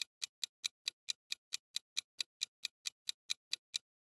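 Clock-ticking sound effect for a quiz countdown timer: sharp, even ticks, about four or five a second, stopping shortly before the end as time runs out.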